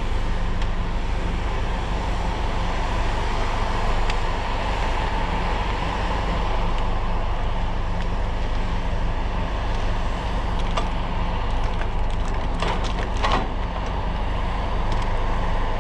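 Diesel engine of a Cat 568 shovel logger running steadily, with a few sharp knocks and clicks in the last third.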